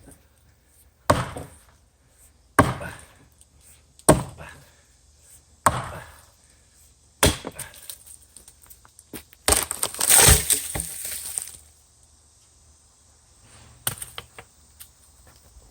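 Axe chopping into a standing tree trunk: five sharp blows about a second and a half apart. About two-thirds of the way through comes a louder, longer crackling stretch of about two seconds, then one more knock near the end.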